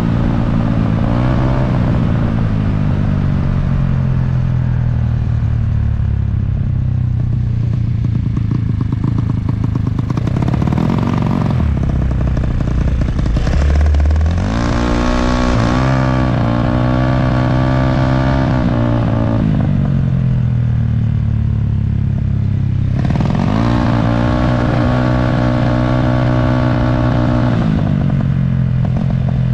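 Yamaha Mio drag bike's bored-up 200cc single-cylinder engine heard from onboard, revving up and easing off several times, with sharp climbs in pitch about a second in, around eleven and fifteen seconds, and again about twenty-three seconds in. A brief low rumble comes about thirteen seconds in.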